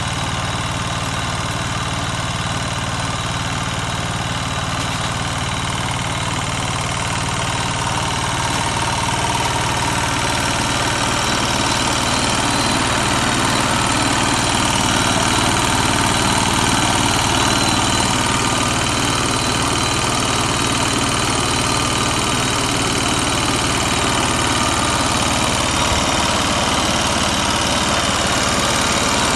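Tractor engine running steadily, driving a homemade chickpea thresher through its PTO shaft, with the thresher's belts and tyre rollers spinning. The sound grows a little louder about halfway through.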